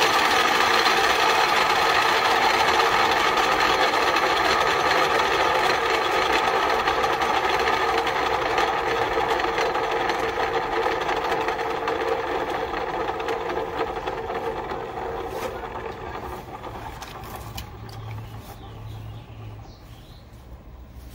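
Ryobi TS1344L miter saw's universal motor and blade spinning on after the trigger is released, the whine slowly fading over many seconds instead of braking to a stop. The blade won't stop spinning, which the owner takes as a sign that the motor brushes are probably at fault. A few light taps near the end.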